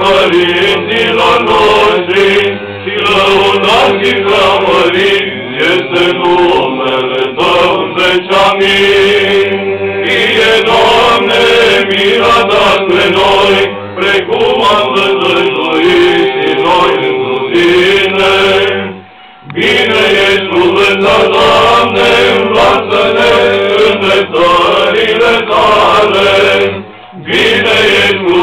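Men's voices chanting Orthodox liturgical chant over a steadily held low note, with the melody moving above it. The singing breaks off briefly twice, about two-thirds through and again near the end.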